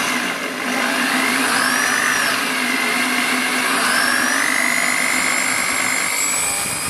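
Electric drill boring small holes through a metal bracket plate, its motor whining steadily, the pitch dipping and rising as the bit takes load.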